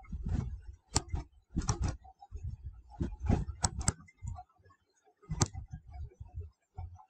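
Stylus tapping and scraping on a tablet surface as words are handwritten: irregular clicks and soft knocks, several in quick clusters with short gaps between.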